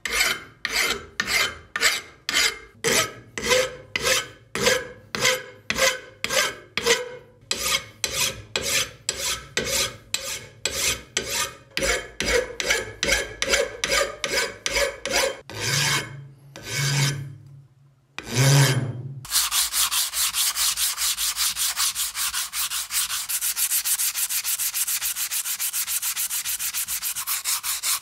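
A hand file rasping across the steel of a hatchet head in steady strokes, about two a second, slowing to a few longer strokes. About 19 s in, this gives way to fast, continuous hand sanding of the steel head.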